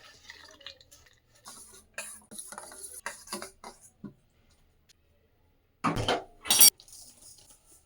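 Kitchen utensils and dishes clinking and knocking, with two loud clatters near the end, the second ringing briefly.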